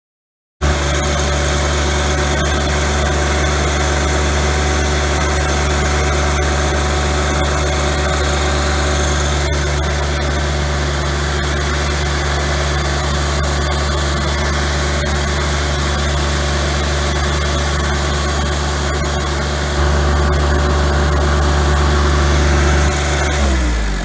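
John Deere 2025R compact tractor's three-cylinder diesel engine running steadily. It gets a little louder about twenty seconds in, and its pitch drops near the end as the engine slows.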